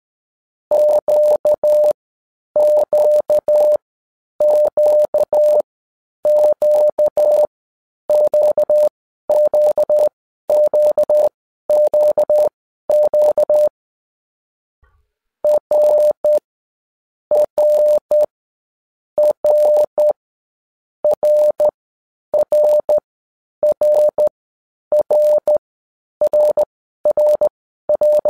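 Morse code played as a single steady beep tone, keyed on and off into dots and dashes in short groups about every two seconds, with one longer pause about halfway through.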